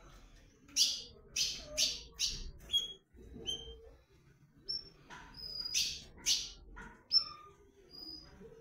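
Male ultramarine grosbeak (azulão) singing and calling. Two runs of loud, quick notes come about a second in and again around six seconds, with short, thin, high whistled call notes between them.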